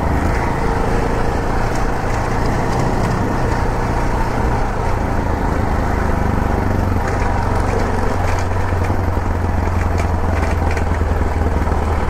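Yamaha XT660Z Ténéré's single-cylinder four-stroke engine running steadily under way on a dirt-road ride.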